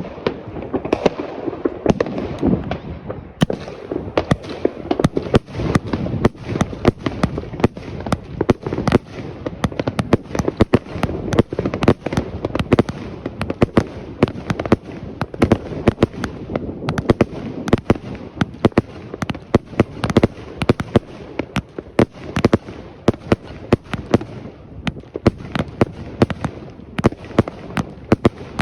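Two Mustang Extreme fireworks going off together: a dense, unbroken barrage of sharp bangs and crackles, several a second.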